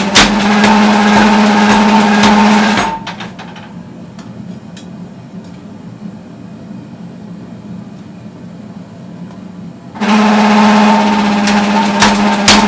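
A machine in a forge workshop runs with a steady low hum. It drops away about three seconds in, leaving a quieter background noise, and comes back about ten seconds in. Near the end, sharp hammer blows on metal start over the hum.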